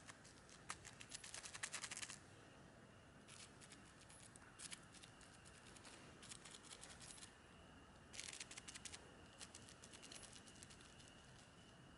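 Faint crackling of dry leaf litter and pine needles as a fingertip prods at small mushrooms on the forest floor, coming in short irregular clusters.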